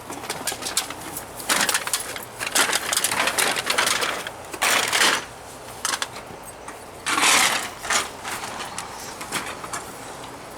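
Cans and junk being handled and tossed, with sharp clicks and several short bursts of clattering and rustling.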